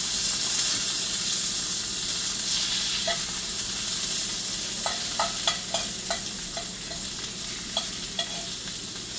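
Asparagus frying in olive oil in a cast iron skillet: a steady, dense sizzle. From about three seconds in, a utensil clicks sharply against the pan a dozen or so times as it is stirred.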